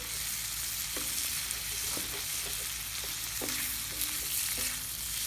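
Potato strips frying in hot oil in a wrought-iron pan over a campfire, sizzling steadily.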